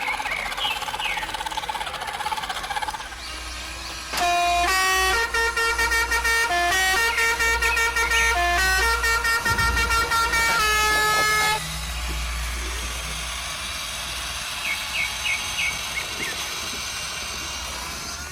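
An RC model truck's horn plays a multi-note tune, stepping through different pitches for about seven seconds, over the low steady rumble of the model's engine sound.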